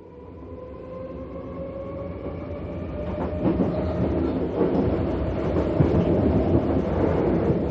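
A train approaching and growing steadily louder, its rumbling wheels filling in strongly from about three and a half seconds in, over a faint steady tone that slowly rises in pitch.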